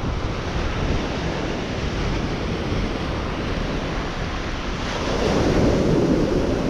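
Ocean surf breaking and washing up the beach, with wind buffeting the microphone; a wave swells louder about five seconds in.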